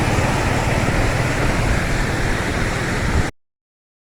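Waterfall water rushing steadily, a loud even roar that cuts off abruptly about three seconds in.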